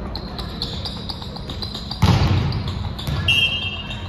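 Volleyball rally on an indoor court: sneakers squeaking on the gym floor, a loud smack of the ball being hit about two seconds in, then a short high whistle blast a second later. The hall echoes.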